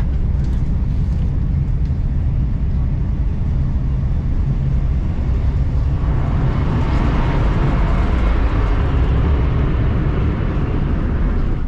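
Cabin noise inside a Renfe Class 112 high-speed train coach as it rolls along: a steady low rumble, with a hissing rush that swells about halfway through and eases near the end.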